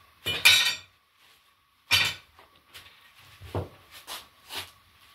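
Cleaver chopping through a lamb carcass's rib bones on a wooden chopping block: a few sharp, heavy blows with a metallic clink, then lighter knocks.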